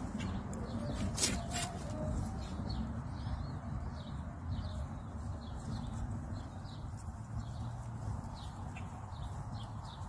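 Small birds chirping on and off in the background over a low steady rumble, with faint clucking from chickens and a few sharp clicks about a second in.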